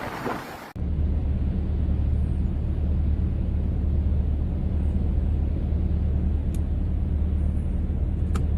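Wind and surf noise that cuts off abruptly within the first second, followed by a loud, steady low rumble.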